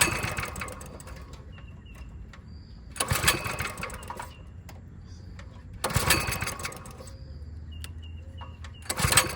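A small pull-start mini bike engine being cranked with its recoil starter four times, about three seconds apart; each pull spins the engine over briefly without it firing. The owner puts the no-start down to a dirty, clogged carburetor.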